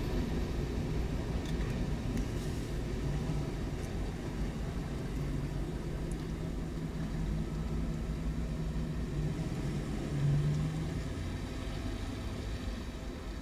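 Low, steady rumble of road vehicle engines idling, with an engine tone that swells briefly about ten seconds in as a vehicle pulls away.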